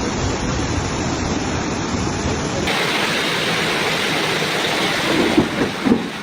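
Floodwater rushing down a street: a steady, loud noise of fast-moving water. It changes abruptly to a brighter, hissier sound about two and a half seconds in, and a few louder bumps come near the end.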